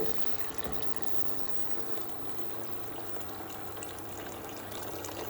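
Water being poured into a pan of risotto rice and vegetables, with a steady pouring and trickling sound.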